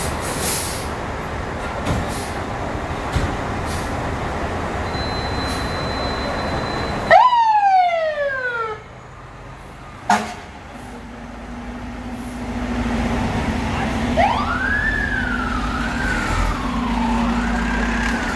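FDNY fire engine and ladder truck pulling out on a call. Their diesel engines run under the street noise. About seven seconds in comes a loud siren blast whose pitch drops steeply over a second and a half. Over the last few seconds a siren wails up and down.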